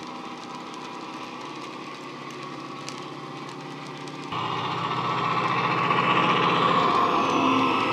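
Model diesel locomotive sound from a sound decoder: a recorded Class 68 diesel engine running under power, played through the Dapol Class 68 model's EM2 speaker. The engine sound is steady, then jumps suddenly louder about four seconds in.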